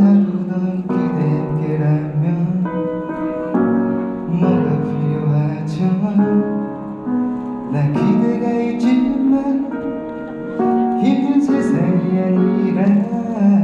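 Live wedding congratulatory song: piano accompaniment under a slow, sustained melody of held notes that step from one pitch to the next, with a few slides in pitch.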